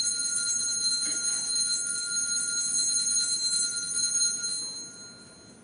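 Altar bells shaken in a rapid, continuous ring for the elevation of the chalice at the consecration, fading out near the end.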